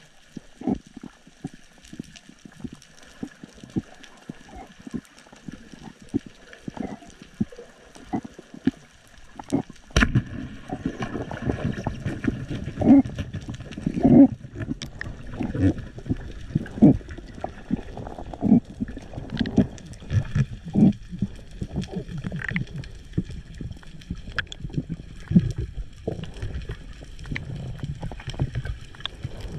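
Underwater sound recorded through a camera's waterproof housing: irregular clicks and knocks over a faint steady whine, with a louder low rushing of water setting in suddenly about ten seconds in.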